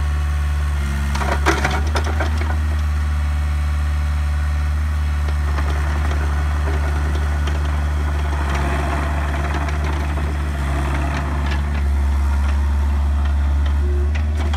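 Bobcat 430 mini excavator's diesel engine running steadily as the machine travels over gravel on its tracks. A quick cluster of clanks and crunches comes about a second and a half in, and rougher crunching of gravel under the tracks from about eight to twelve seconds.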